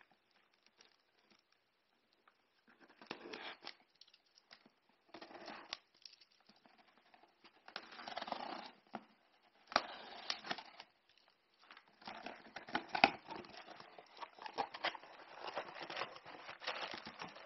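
Cardboard parcel being opened by hand: packing tape slit and torn with a pocket knife, cardboard flaps scraping, and plastic air-pillow packaging crinkling. It comes in short bursts of rustling and tearing that get busier and louder in the second half, with one sharp click about 13 seconds in.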